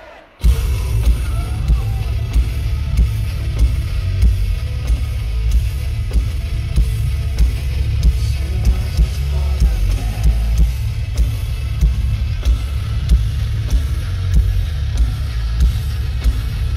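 Metalcore band playing live, loud and heavy, with drums and distorted guitars. After a brief break at the very start, the full band comes back in at once.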